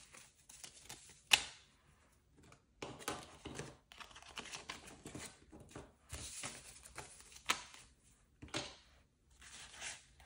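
Paper banknotes rustling and crinkling in short bursts as they are handled and sorted by hand, with one sharp click a little over a second in.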